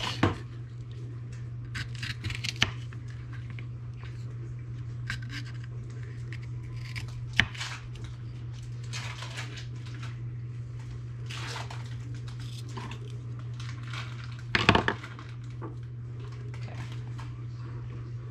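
Kitchen knife cutting mini sweet peppers on a wooden cutting board: a few sharp knocks of the blade on the board, the loudest a quick cluster about fifteen seconds in, with softer scraping and crunching of the peppers in between. A steady low hum sits underneath.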